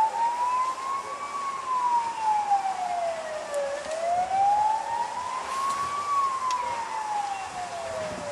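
Emergency vehicle siren wailing, its pitch rising and falling slowly, about five seconds for each rise and fall, twice over.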